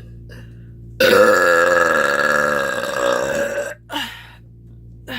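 A woman's long, loud burp, starting about a second in and lasting nearly three seconds, its pitch wavering as it goes.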